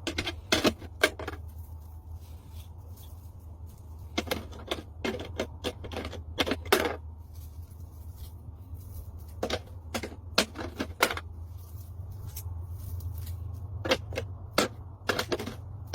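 Sharp clicks and taps of small hard objects, in irregular clusters, over a steady low hum.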